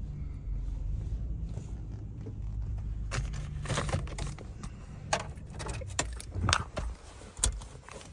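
A low steady rumble inside a car cabin, then from about three seconds in a string of sharp clicks and key jingles as hands work the ignition key and dashboard controls.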